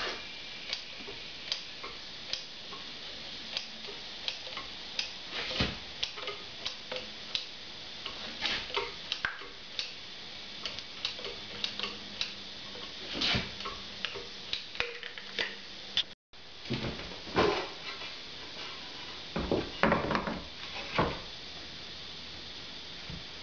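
Caulking gun trigger clicking roughly once a second as dabs of builder's glue are squeezed onto the back of a tile. After a cut, louder knocks and scraping as the tile is set down on the bench top.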